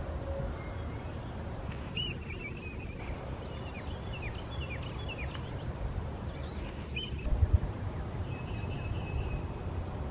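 Distant red-tailed hawks and crows calling: several harsh, raspy calls, each about a second long, spread out over low background rumble. A quick run of short chirps comes in the middle.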